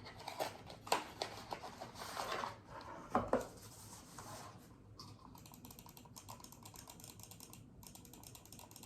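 A new computer mouse being unpacked and tried out: a few knocks and packaging rustles, then from about five seconds in a long run of fast, light plastic clicks from its buttons and scroll wheel.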